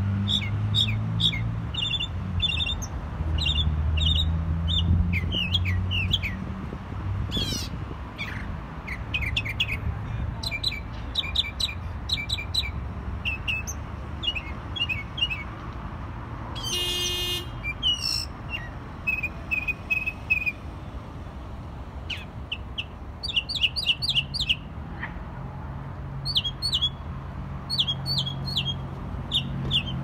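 Northern mockingbird singing: a long run of varied short phrases, each repeated several times in quick succession, with one harsh buzzy call about halfway through. A low rumble runs underneath.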